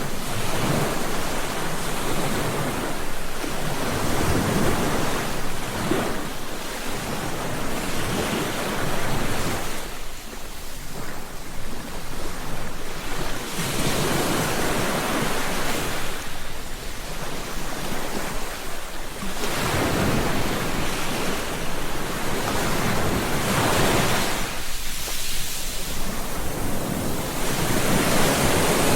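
Ocean surf: waves breaking and washing ashore in repeated swells a few seconds apart, each rising and falling away.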